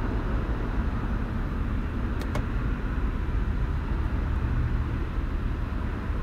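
Steady low rumble of background noise, with two light clicks close together a little over two seconds in as the car's sun visor is flipped back up.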